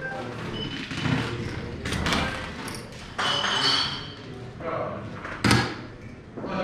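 A soft-tip dart strikes an electronic dartboard with one sharp thud about five and a half seconds in, the hit that the board scores. People talk in the room around it.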